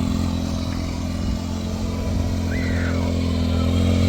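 A motor engine running steadily at a constant speed. About two and a half seconds in there is a brief high chirp that rises and falls.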